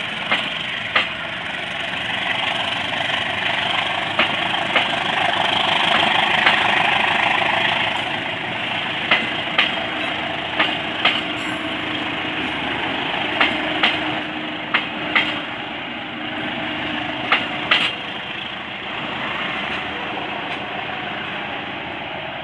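Indonesian passenger train coaches rolling away on a curved track: a steady rumble of wheels on rail, with sharp clacks in pairs every few seconds as each bogie's wheels cross a rail joint. The sound is loudest about six seconds in and slowly fades as the train moves off.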